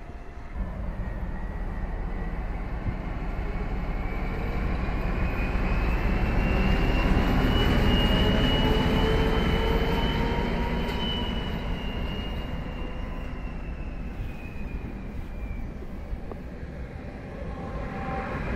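ČD class 754 'Brejlovec' diesel-electric locomotive running light past, its engine growing louder to a peak about eight to ten seconds in and then fading away. A high whine rises and then falls in pitch as it goes by.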